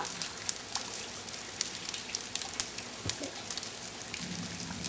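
Steady rain falling, with individual drops landing close by as sharp ticks at irregular intervals.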